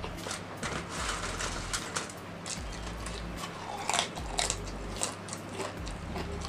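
Black ghost pepper potato chips being bitten and chewed close to the microphone: a run of crisp crunches, loudest about four seconds in.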